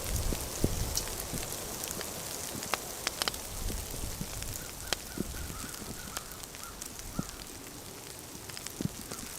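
Light rain pattering, with scattered sharp crackles and pops from a campfire.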